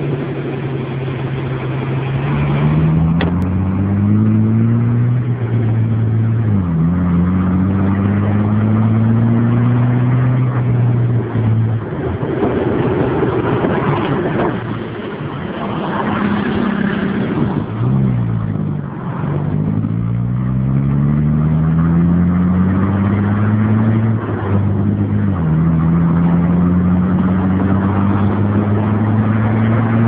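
Mercedes-Benz O371 city bus's diesel engine pulling and accelerating: its pitch climbs steadily, then drops abruptly at each gear change, again and again. About halfway through it runs rougher and lower for a few seconds before climbing through the gears once more.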